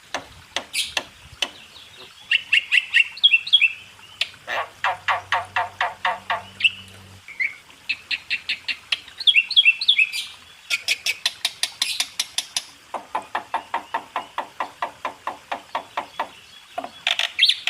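Asian starlings calling: long runs of rapid, evenly repeated harsh notes, about six a second, broken by short higher whistled notes.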